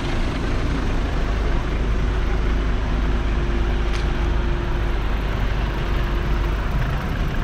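Slow-moving street traffic: car engines running as cars crawl past close by, a steady low rumble with a constant hum that stops near the end.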